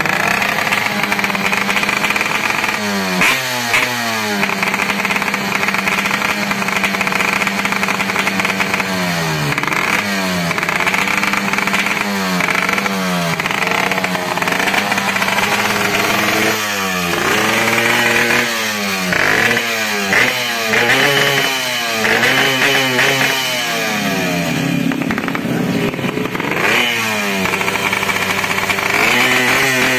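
Yamaha RX-King's single-cylinder two-stroke engine and exhaust, revved over and over. The pitch holds steady for a few seconds at a time, then climbs and drops again many times.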